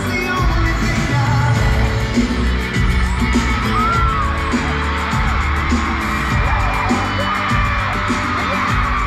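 A live pop band plays in an arena, heard from the stands, with singing and a crowd yelling and whooping over the music.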